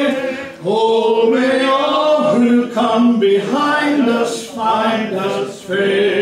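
A man singing a hymn unaccompanied, in slow phrases of held notes with short breaks for breath between them.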